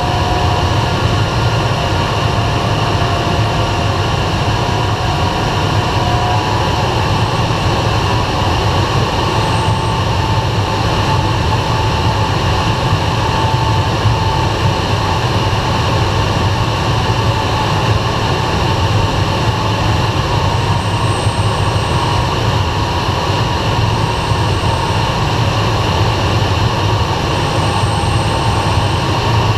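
Steady rush of air around the cockpit of an SZD-51 Junior glider under aero tow, with a low drone from the tow plane's engine ahead.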